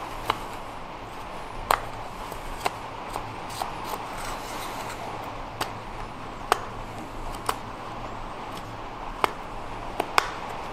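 Carving knife slicing shavings from a wooden spatula blank: short, sharp cuts at uneven intervals, a dozen or so, over a steady background hiss.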